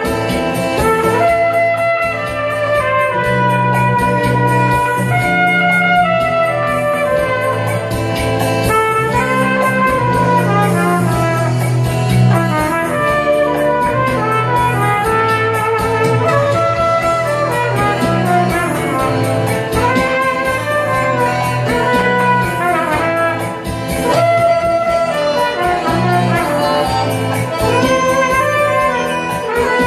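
Trumpet playing a flowing melody over an accompaniment with a steady bass line.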